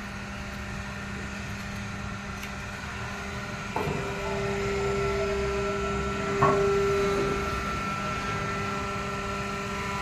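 Hydraulic power pack of a vertical plastic-waste baler: electric motor and pump humming steadily. About four seconds in, the pump takes load as the ram presses down on the plastic, and a steady whine sets in, growing for a few seconds before easing off, as hydraulic pressure builds.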